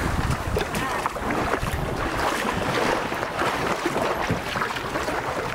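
Shallow seawater splashing and lapping around people wading beside an outrigger boat, with wind buffeting the microphone.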